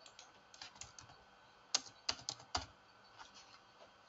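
Typing on a computer keyboard: a scatter of short key clicks, with a few louder strokes close together in the middle.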